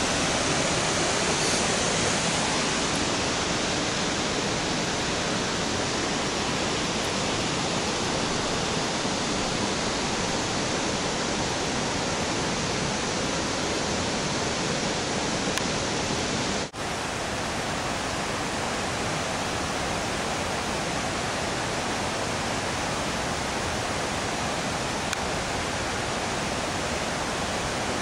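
Steady rushing of a river waterfall and rapids, broken once by a brief dropout about two-thirds of the way through.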